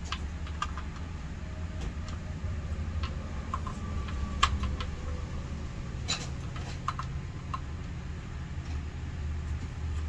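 Scattered light clicks and taps from a shower hose's threaded fitting being handled and hand-tightened onto a handheld shower head, over a steady low hum.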